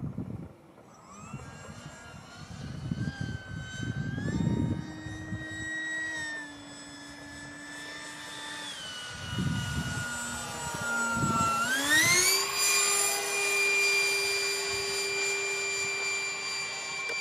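Radio-controlled Eurofighter model jet in flight, its engine whining and changing pitch with the throttle. The pitch dips, then rises steeply about twelve seconds in and holds high.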